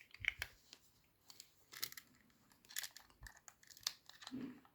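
Small plastic-and-metal clicks and rustling from a Rollei 35 compact film camera being handled, in a scatter of short, quiet taps.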